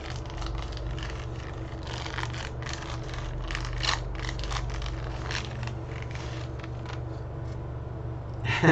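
Wax-paper wrapper of a baseball card pack crinkling and tearing as it is opened and the cards slid out, in quick irregular crackles that thin out after about six seconds. A steady low hum runs underneath.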